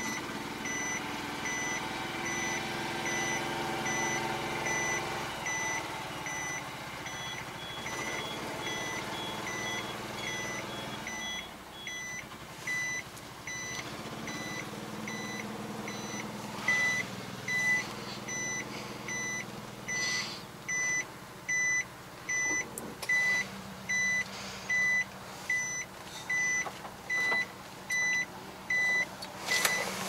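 Small truck's engine running, heard from inside the cab, with an electronic warning beep repeating about once a second over it; the beeps grow louder in the second half.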